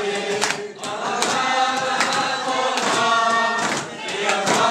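A group of voices singing together, a choir-like song with held notes and short breaks between phrases.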